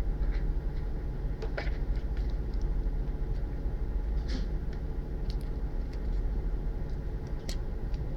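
A steady low rumble with a few short, faint clicks and taps scattered through it.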